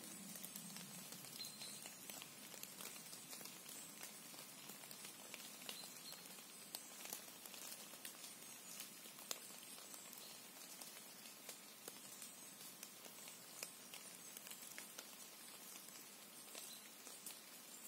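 Quiet forest ambience: a faint steady hiss with soft, irregular ticks and patters, and a few faint high chirps.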